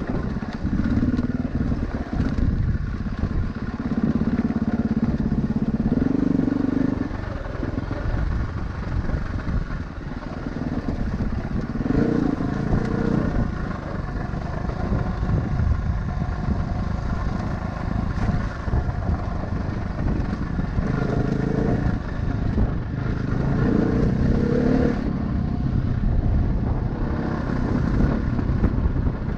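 An off-road vehicle's engine running along a rough mountain trail, its pitch rising and falling several times with the throttle, over a steady rumbling noise.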